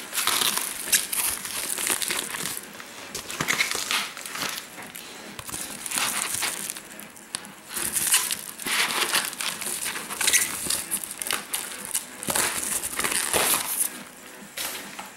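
Padded bubble mailer and plastic bubble wrap crinkling and rustling in irregular bursts as they are cut open with scissors and pulled apart by hand.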